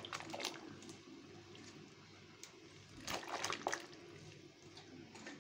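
Water sloshing and trickling in a steel pot as whole cabbage leaves are pushed down into the boiling water to blanch, with a few short splashes about three seconds in.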